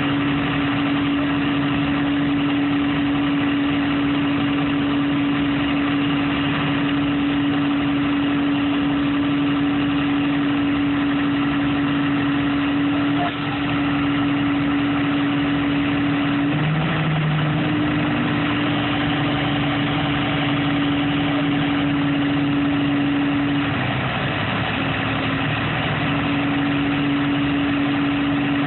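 An engine running steadily at idle, with a strong, steady hum whose pitch wavers briefly about halfway through and again near the end.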